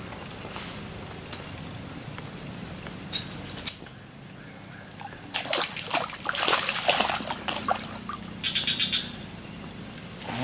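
Steady, pulsing high-pitched insect drone from the forest, with a sharp click a little before four seconds in and a spell of splashy, rustling noise around six to seven seconds.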